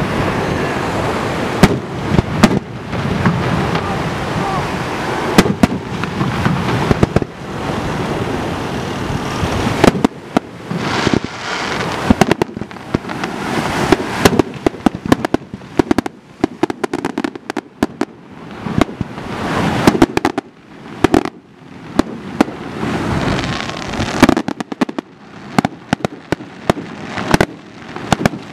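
Aerial fireworks shells launching and bursting, many sharp bangs in quick succession over a continuous noisy rumble for the first ten seconds or so, then coming in spaced clusters with short lulls between them.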